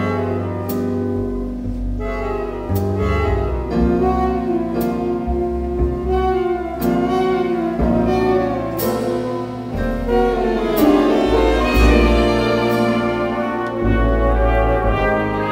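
Big band playing a slow jazz ballad: sustained horn chords over a walking bass, with light cymbal taps about every second to two seconds. The ensemble swells louder in the second half.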